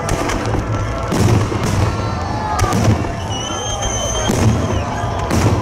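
Fireworks display going off: repeated bangs and crackling bursts over a steady low rumble of explosions. High whistling tones join in about three seconds in.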